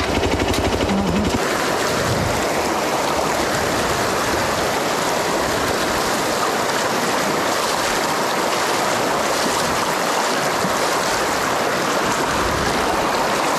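Shallow river rushing over stones, a steady wash of water close to the microphone. For about the first second and a half, the Hero Xpulse 200's single-cylinder engine idles under the water before it drops away.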